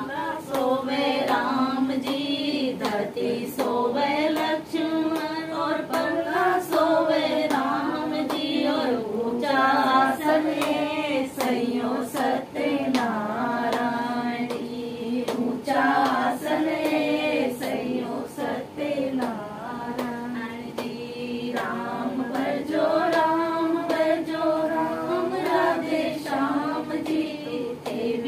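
Women singing a Hindi devotional bhajan together, with hand clapping keeping the beat throughout.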